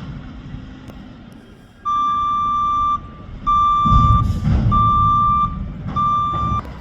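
Backup alarm of a Mack McNeilus front-loader garbage truck beeping four times, each beep about a second long, as the truck reverses. The truck's engine rumbles underneath, swelling about four seconds in.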